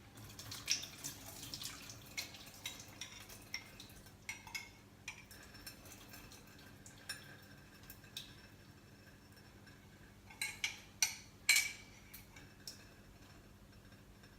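Water being drained off microwave-poached eggs: small trickles and drips, with light clinks of crockery and a utensil. A few louder clinks come about two-thirds of the way through.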